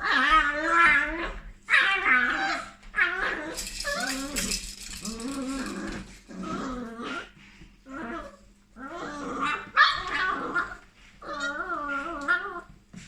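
Vizsla puppy growling and whining over a piece of beef, in repeated wavering bouts about a second long with short pauses between. There is a brief rustling hiss about four seconds in.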